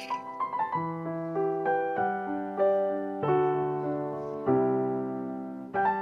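Background piano music: a quick run of notes at the start, then single notes and chords struck about once a second.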